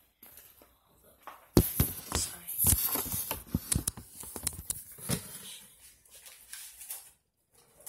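A quick run of knocks, clicks and rustles from handling a plate and the phone, starting about a second and a half in and thinning out after about five seconds.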